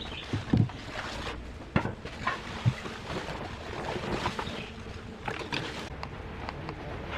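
Three dull thuds in the first three seconds, a little over a second apart, with faint scraping and rustling between and after them.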